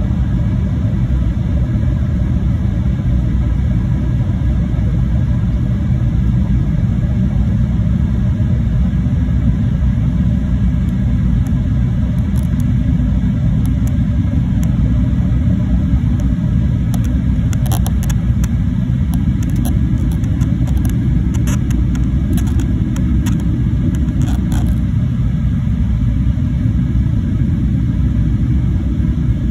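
Steady low rumble of a jet airliner's cabin in flight, the engines and airflow heard through the fuselage from a window seat. A few faint clicks come through around the middle.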